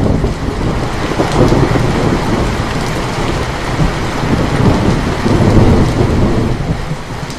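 Steady heavy rain with a long roll of thunder that breaks in suddenly and keeps rumbling, easing slightly near the end.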